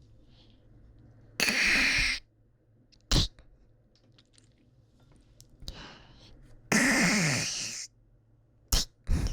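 A person hawking phlegm up from the throat with a harsh 'kak' and spitting it out ('ttwe'), twice: a hawk about a second and a half in followed by a short, sharp spit, then a breath, a longer rasping hawk and two quick spits near the end.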